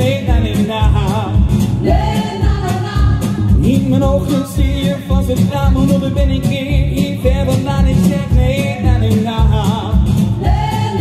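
A man singing live into a microphone over an amplified backing track with a steady beat.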